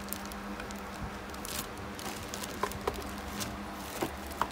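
Plastic packaging rustling and small handling clicks and squeaks as a boxed water booster pump and its power adapter are unwrapped, over a faint steady low hum.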